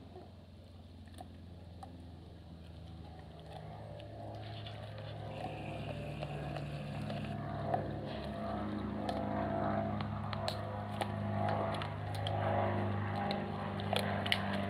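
A dog crunching and gnawing a raw venison rib bone, with scattered sharp cracks and clicks that come more often in the second half. Under it a steady engine drone grows gradually louder.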